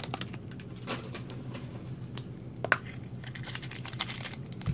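Light scattered ticks and crinkles of a plastic toy blind-pack wrapper being handled, with one sharp click a little past halfway.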